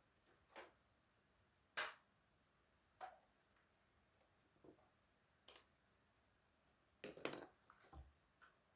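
Faint, scattered clicks and light knocks of small parts and tools being handled, about eight in all, with a quick cluster near the end.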